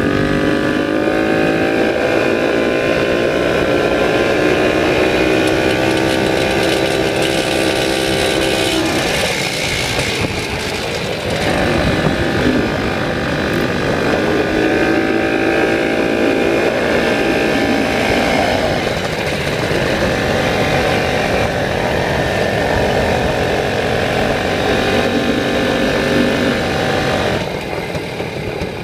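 Vintage Victoria motorcycle-and-sidecar engine running under way. Its pitch climbs steadily for about eight seconds, drops suddenly, then rises and falls for the rest of the time, and eases off near the end.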